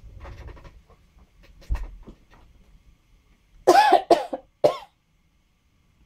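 A woman coughs three times in quick succession about four seconds in, the first cough the loudest. Before that come faint rustles and a soft thump of paper sticker sheets being handled.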